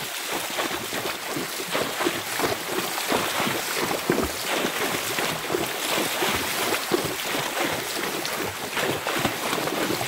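Horses wading through a shallow river, their hooves splashing in the water in quick, uneven splashes.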